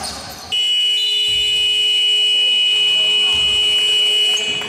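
Basketball scoreboard buzzer sounding one steady, high-pitched tone for about four seconds, starting about half a second in: the signal that the game clock has run out at the end of the quarter.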